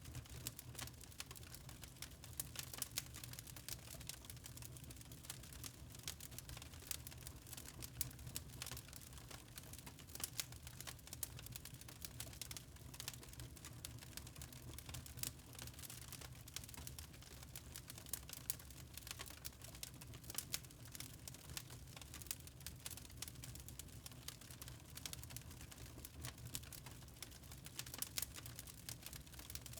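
Fire in a fireplace crackling: many small, irregular pops and snaps over a low, steady rumble.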